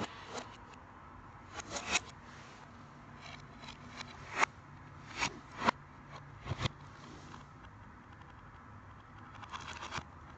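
Scattered clicks, knocks and scrapes of hands handling a DVD case and disc player, heard in reverse, with a cluster of quick clicks near the end over a faint low hum.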